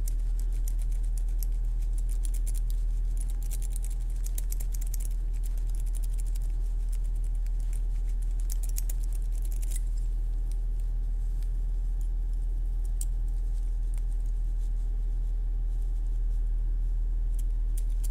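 Rake lock pick scraping and clicking over the pins of a six-pin euro cylinder under tension, with rocking and raking strokes. Rapid runs of fine clicks are densest in the first five seconds and again around eight to ten seconds in, then only scattered clicks. A steady low hum runs underneath.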